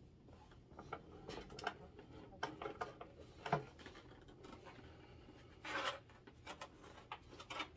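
Plastic handling noise from a large plastic Razor Crest toy ship as it is lifted and tilted above its display stand: scattered light clicks and rubbing, with one brief louder scrape about six seconds in.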